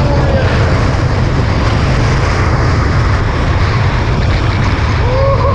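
Steady loud wind noise buffeting the microphone, with water rushing past the hulls, from a small catamaran sailing at speed in very strong wind.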